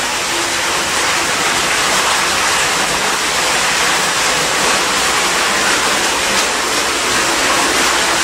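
Water gushing steadily from a pump's discharge hose into a partly filled tank, splashing as it lands on the water.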